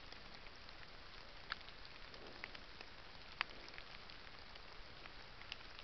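A black bear foraging in dry fallen leaves, with a few scattered sharp crackles and snaps over a steady hiss, the loudest about three and a half seconds in.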